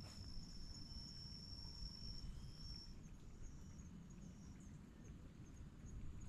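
Faint insect song: a high, steady trill held for a little over two seconds, then a shorter one, over a quicker, pulsing high chirping, with a low rumble underneath.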